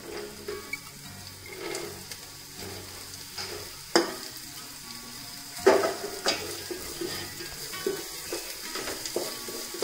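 Chopped vegetables tipped into a pot of frying onions and stirred with a wooden spatula, the oil sizzling steadily under the scraping. Two sharp knocks against the pot, about four seconds in and just before six seconds, are the loudest sounds, with a few lighter taps after.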